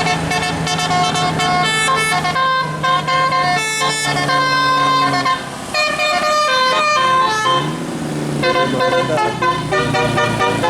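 Bus 'telolet' horn, a set of tuned horn trumpets, playing a quick melody of stepped notes in several phrases with short breaks between them, over the low hum of the bus.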